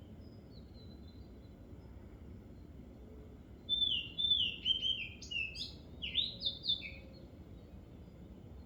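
A bird singing one quick phrase of short, high, down-slurred notes, starting about four seconds in and lasting about three seconds, with a faint single call near the start.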